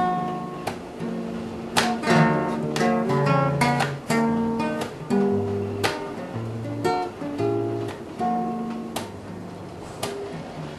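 Acoustic guitar music: strummed chords mixed with picked notes, an instrumental passage with no singing.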